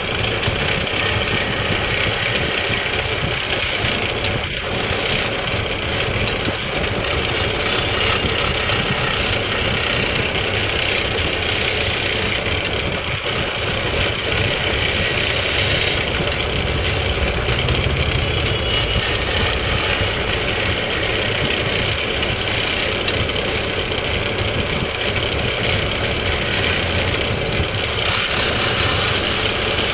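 Wood lathe running steadily while a turning tool cuts the spinning wood, a continuous dense scraping and machine noise.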